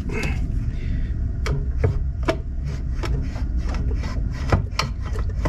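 Scattered light clicks and taps, with some rubbing, as a Ferrari 360 Challenge Stradale's front brake caliper is handled and eased off its carbon-ceramic disc, over a steady low rumble.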